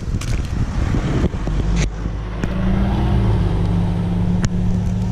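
A motor vehicle engine running close by. It settles into a steady low hum about two seconds in, with a few light clicks over it.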